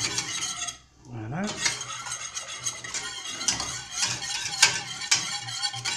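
Wire whisk beating a milky mixture in a stainless steel saucepan, its wires clicking and scraping rapidly against the metal, with a short pause about a second in.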